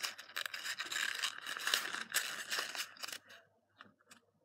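Sheet of printer paper crinkling and rustling as it is handled and folded close to the microphone, dying away after about three seconds into a few faint ticks.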